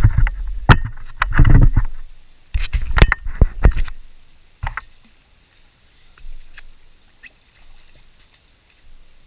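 Water splashing and knocking in a quick run of sharp strokes as a hooked trout is grabbed and landed by hand, dying away after about four seconds into a few faint ticks over a steady hiss.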